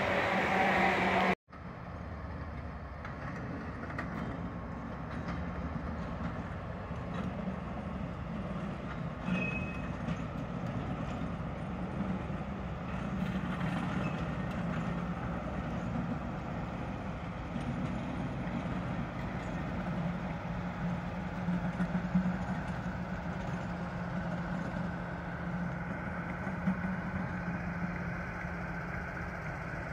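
A passing electric multiple unit's wheel and rail noise, cut off sharply about a second and a half in. Then the diesel engines of two Colas Rail Freight locomotives run steadily with a low hum.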